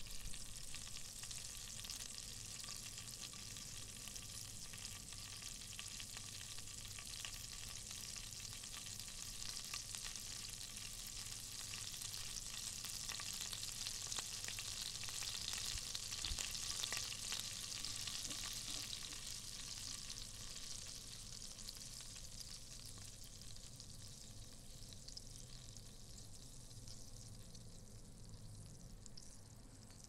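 Butter sizzling in a pan on a gas hob: a dense hiss full of fine crackles that swells towards the middle and dies down somewhat near the end.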